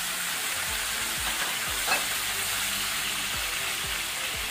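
Chicken wings sizzling in hot oil in a frying pan with fried garlic and ginger, being stirred with a spatula. One sharp click about two seconds in.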